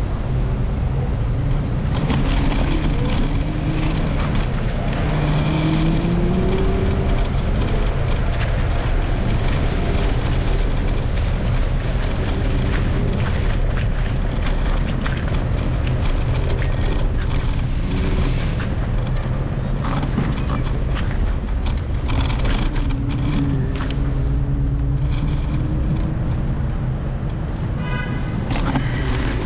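Steady wind rumble on a moving action-camera microphone, mixed with road traffic. Twice a passing engine rises and falls in pitch.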